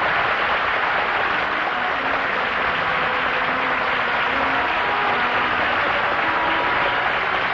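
Studio audience applauding steadily, with orchestral music coming in faintly under the applause about two seconds in.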